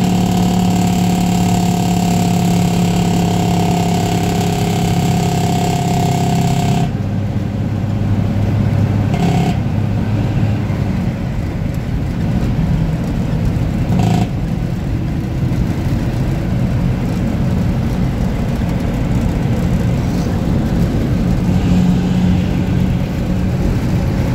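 1975 Dodge Bighorn tandem tractor's diesel engine running under way, heard from inside the cab: a steady pitched drone. A higher whine in it stops about seven seconds in, and two short blips come a few seconds later.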